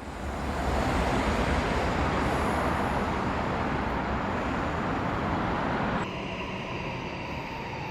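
Train running on the rails: a steady rush of rolling noise that fades in over the first second, then drops to a quieter level about six seconds in.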